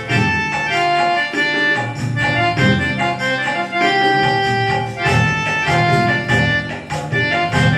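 Casio CT-X9000IN keyboard playing its Garba Type 1 auto-accompaniment rhythm: a quick, even folk-dance percussion pattern with bass and chords, and held melody notes over it.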